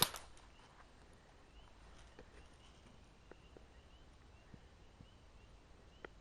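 Quiet outdoor background with faint bird chirps and a few faint, scattered clicks.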